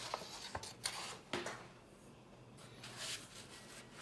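Faint scattered rustles and light taps of watercolour paper and a paintbrush being handled.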